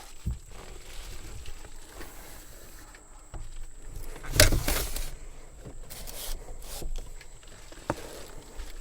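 Rubbing and scraping with several short knocks, the loudest about halfway through: a person shifting about in a truck-bed camper and sliding its windows open.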